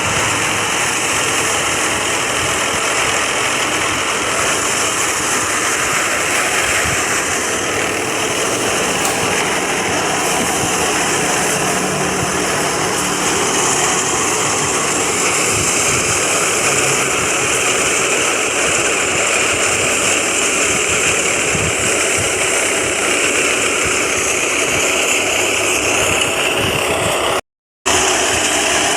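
Massey Ferguson 240 tractor's three-cylinder diesel engine running steadily under load while it drives a PTO-powered wheat thresher, with the thresher's loud, even whirring and rushing hiss over the engine. The sound cuts out for a split second near the end.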